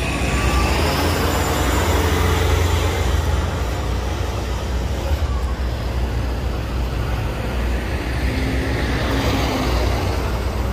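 City street traffic with buses and cars: a steady low engine rumble over road noise, heaviest in the first few seconds.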